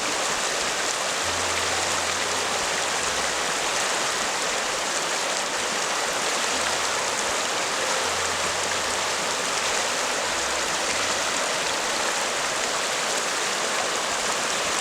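Water rushing loudly and steadily, a continuous even roar with no breaks.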